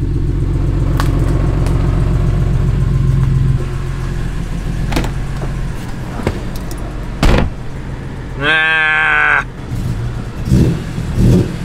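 BMW E46 M3's engine idling steadily, louder for the first three and a half seconds and then quieter, with a few sharp clicks.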